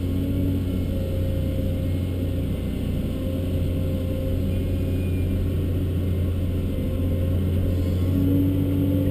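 Caterpillar 324D long-reach excavator's C7 six-cylinder diesel heard from inside the cab, running steadily under working load as the boom and stick dig, with a deep, even drone. A higher hum rises and fades over it and grows stronger near the end as the upper structure swings.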